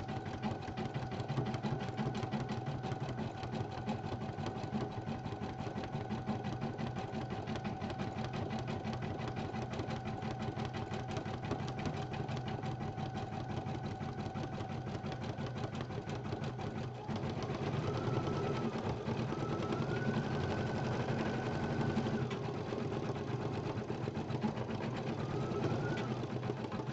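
Brother BP1530L computerized embroidery machine stitching with rapid, even needle strokes. About two-thirds of the way through the sound shifts and gets a little louder, with rising and falling whines as the hoop moves across the design.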